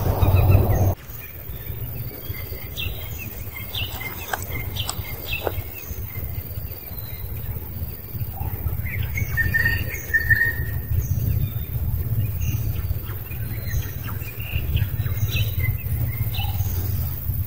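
Forest ambience: birds chirping in short, repeated high calls over a steady low rumble. A loud rough noise fills the first second and cuts off abruptly.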